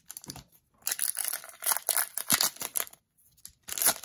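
Wrapper of a retail pack of hockey trading cards being torn open and crinkled, in two spells of crackling with a short pause about three seconds in.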